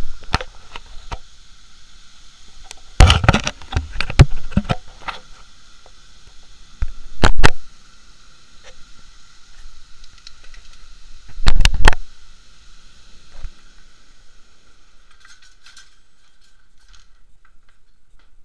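Heavy storm rain hissing steadily, fading near the end. Several loud bursts of noise hit the microphone, about three, seven and twelve seconds in.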